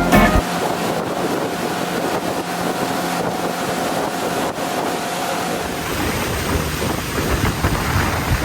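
Steady rush of wind and water noise from a moving boat, with a faint steady hum that fades about two-thirds of the way through.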